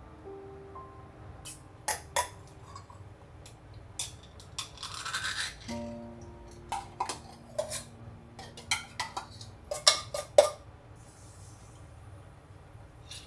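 Soft background music with held notes, over kitchen handling sounds from a ring-pull tin can being opened: scattered metal clicks, a scraping rasp about five seconds in, and sharp snaps of the lid near ten seconds in.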